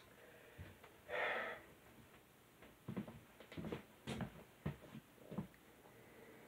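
A short exhale about a second in, then soft footsteps across a bedroom floor: a run of light, irregular thuds for about two and a half seconds.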